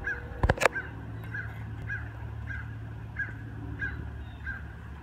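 A bird calling over and over, one short call about every two-thirds of a second, over a low steady hum. A couple of sharp knocks come near the start.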